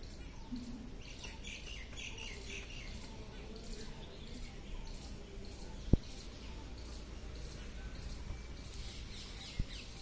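Small birds chirping over and over in short, high notes, with one loud thump about six seconds in and a softer one near the end.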